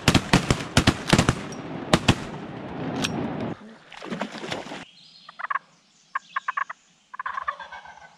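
A volley of shotgun shots, many blasts in quick succession from several guns over the first three and a half seconds, then quieter short sounds for the rest.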